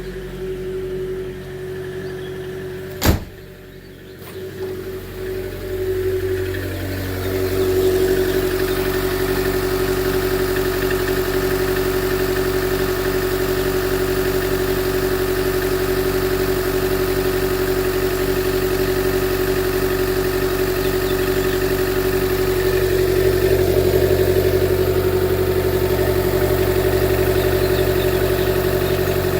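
2013 Chevy Volt's 1.4-litre four-cylinder range-extender engine idling with the rough idle of a misfire fault (P0101), which new plugs, a coil pack and a MAF sensor have not cured. A sharp click comes about three seconds in, then the engine sound builds over the next few seconds and holds steady.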